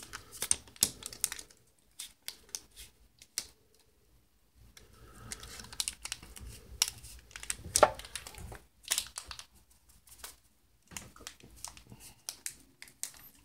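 Foil Pokémon booster pack wrapper crinkling in the hands, with irregular sharp crackles as it is handled and picked at to open it gently.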